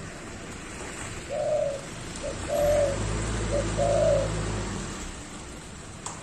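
Caged dove cooing in peak breeding condition: three low coos about a second apart, with short notes between them. A low steady hum runs under the later coos for about two seconds.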